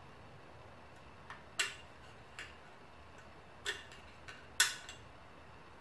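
Sharp metallic clicks, about six, two of them louder, as a screwdriver works a steel retaining clip into its groove in a motorcycle fork tube, holding the new fork seal in place.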